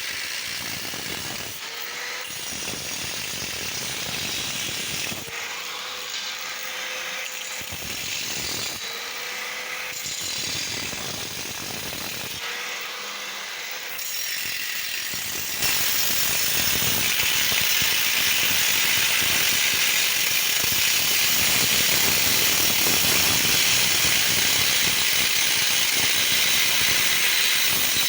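Angle grinder running, its motor pitch rising several times in the first half. About halfway through it turns louder and steady.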